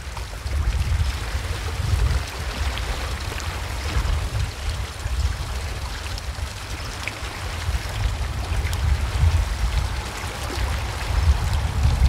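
Sea washing against shore rocks, a steady rushing wash, with wind buffeting the microphone in an irregular low rumble.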